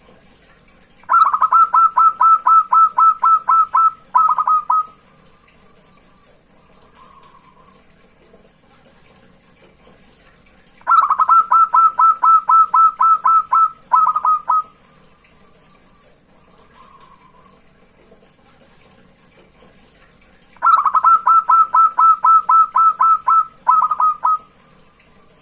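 Zebra dove (perkutut) singing its song three times, about ten seconds apart. Each song is a quick, even run of about a dozen notes, a short pause, a brief burst of a few more, then softer trailing coos.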